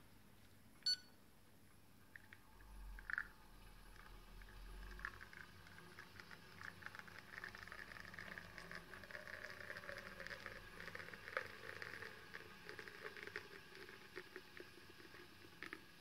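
A digital coffee scale beeps once about a second in as its timer starts. The Londinium LR's pump gives a brief low rumble. Then espresso streams and drips from the portafilter spouts into porcelain cups, a faint steady spattering.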